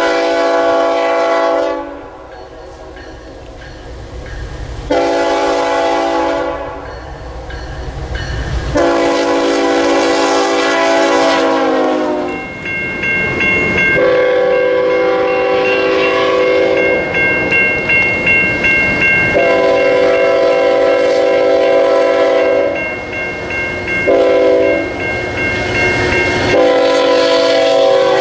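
Nathan Airchime K5HL five-chime air horn on a diesel freight locomotive sounding a series of blasts, mostly long with one short one, as the train rolls by.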